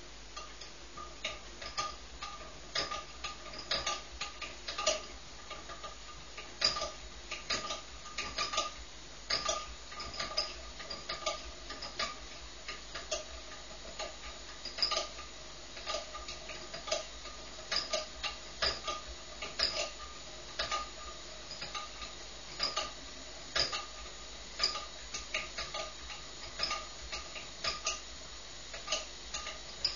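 Bialaddin T10 paraffin pressure lamp being pumped up by hand: short, slightly squeaky clicks at each stroke, about two a second and not quite even, over a steady hiss.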